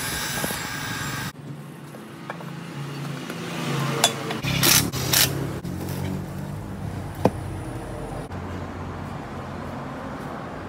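Aluminium motorcycle engine crankcase being handled and turned over, giving a few sharp metal knocks and clinks over a low steady workshop hum. A steady hiss at the start cuts off suddenly just over a second in.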